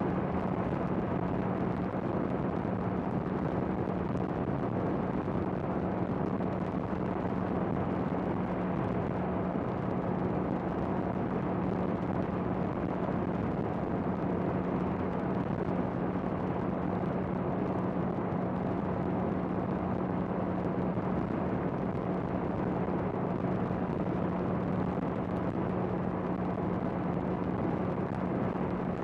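Honda CBR650R's inline-four engine running at a steady, unchanging pitch while cruising, with a steady rush of wind and road noise.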